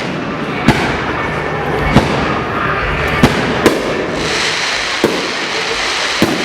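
Aerial fireworks bursting: six sharp bangs, irregularly spaced about a second apart, over a continuous noisy background of crackle and hiss that grows brighter about halfway through.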